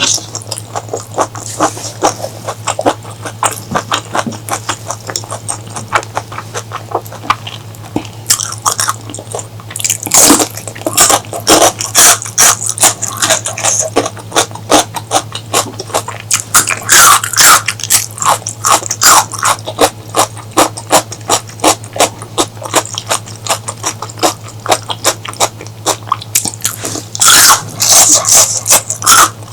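Close-miked chewing and wet mouth sounds of a person eating, a dense run of quick clicks and smacks with louder stretches around a third of the way in, a little past halfway and near the end. A steady low hum runs underneath.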